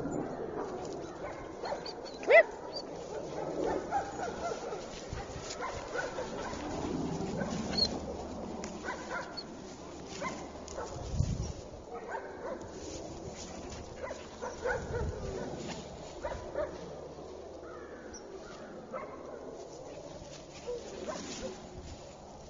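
German Shepherd puppy giving one sharp bark about two seconds in, with rustling through grass as it is walked on a leash.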